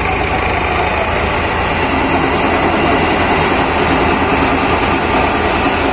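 ShaktiFarm tractor-driven thresher running steadily while threshing paddy. Its drum and cleaning fans are driven by a Sonalika DI 42 RX tractor's engine, making a dense, continuous machine noise with a fast low pulsing.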